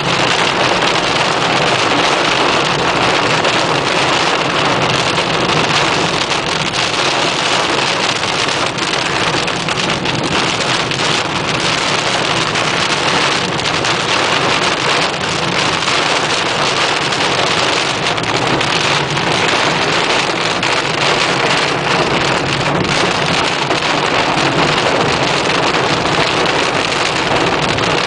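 Heavy rain during a thunderstorm, heard from a car: a steady, dense hiss of rain with no letup.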